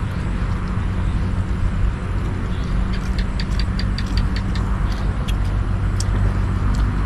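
An engine running steadily at idle, with a quick run of light ticks about three seconds in.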